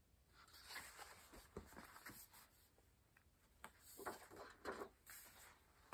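Faint rustling and scuffing of a picture book's paper pages being handled and turned, in two short spells.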